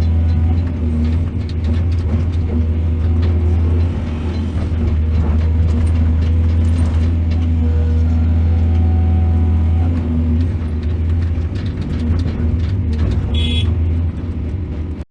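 Heavy diesel engine of a mining excavator running steadily under load, with scattered clanks and knocks.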